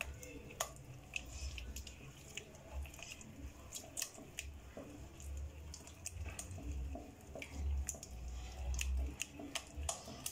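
A plastic spatula stirring a thick yogurt-and-spice marinade in a glass bowl: wet squelching with irregular light clicks and scrapes of the spatula against the glass.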